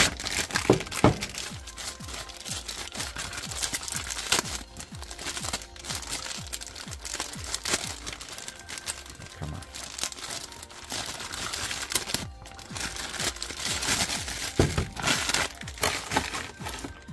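Packaging crinkling and rustling as it is handled, in irregular crackles, with background music underneath.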